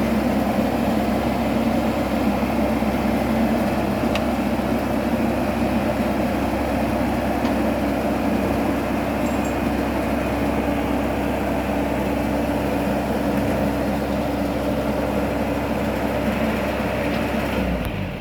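Combine harvester running steadily at working speed with a constant mechanical drone. Near the end the engine note falls and the sound drops to a lower idle.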